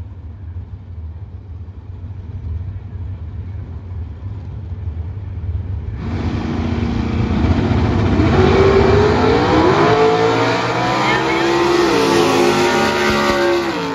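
NHRA Super Stock drag cars idling with a low rumble at the starting line, then launching about six seconds in and running hard down the strip, the engine pitch climbing and dropping back several times as they accelerate.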